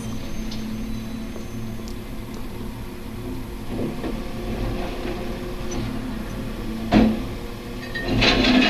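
Recycling collection truck's engine running steadily, with one sharp bang about seven seconds in and a burst of clanking near the end as the side lifter raises a blue bin into the hopper.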